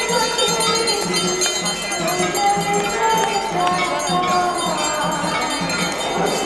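Metal bells ringing continuously during the Ganga aarti, over a slow devotional hymn sung in long held notes.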